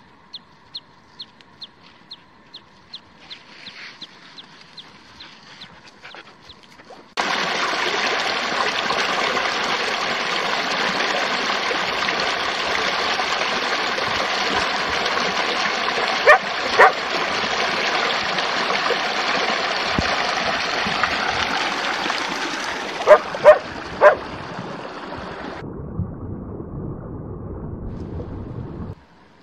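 Faint regular footfalls, then the steady rush of a stream cutting in suddenly; over the water a dog barks twice and, a few seconds later, three times.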